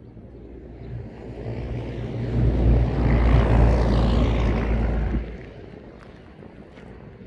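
A loud engine passing close by, swelling over a couple of seconds and dropping away sharply a little after five seconds in.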